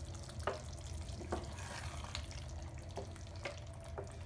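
A wooden spatula stirring thick chicken curry in an open pressure cooker: wet squelching of the gravy, with a few short scrapes and knocks against the pot, over a steady low hum.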